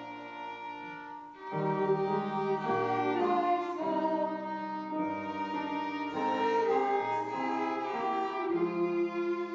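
Slow hymn music: sustained chords that change about every second, with a short dip in loudness about a second in.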